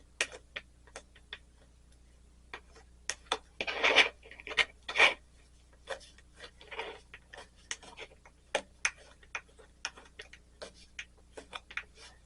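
A hand burnishing tool rubs and presses copper foil down over the edge of a cut stained-glass piece. There are scattered light clicks and taps, with a few louder rubbing strokes about four to five seconds in.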